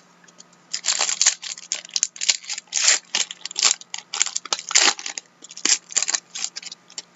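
Trading cards and their packaging being handled close to the microphone: quick, irregular rustling, scraping and clicking strokes that begin about a second in and continue almost to the end.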